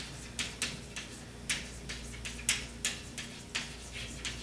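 Chalk writing on a blackboard: a string of short, sharp, irregular taps and scrapes, a few each second, as letters are written.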